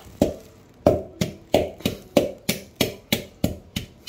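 Wooden pestle pounding a coarse seasoning mixture in a bowl, steady knocks about three a second, each with a brief ring.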